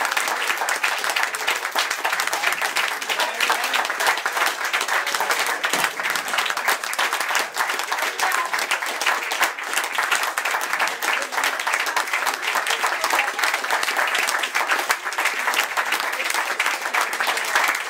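Audience applauding, dense clapping that keeps up steadily without a break.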